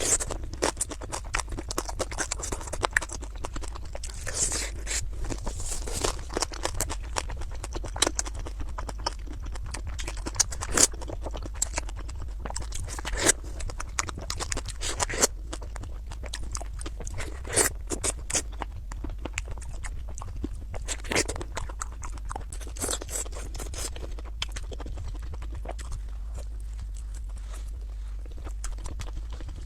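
Close-miked mukbang eating sounds: wet chewing and lip smacking with scattered sharper crunchy clicks, over a steady low hum.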